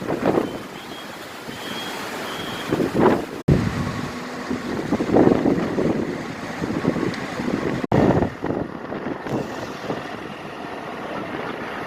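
Gusting wind buffeting the microphone over the sound of a vehicle running. The sound breaks off abruptly twice.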